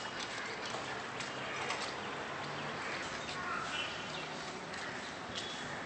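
Steady outdoor background noise with a few short, scattered bird chirps.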